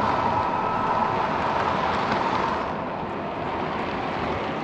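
O-scale three-rail model freight cars rolling past on metal track: a steady rolling noise of wheels on rail, easing slightly about two and a half seconds in.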